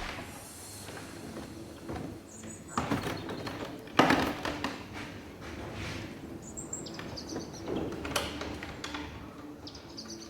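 Scattered knocks and clicks of car body parts being handled and positioned as a slam panel is lined up for bolting. The loudest knock comes about four seconds in, and two more come close together near eight seconds.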